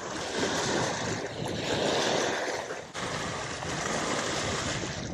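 Small waves lapping against a rocky lake shore, with wind on the microphone: a steady, shifting rush that drops briefly just before the three-second mark.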